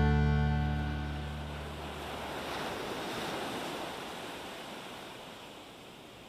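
The last guitar chord of a country song rings out and fades. Then ocean surf washes in, swells in the middle and slowly dies away.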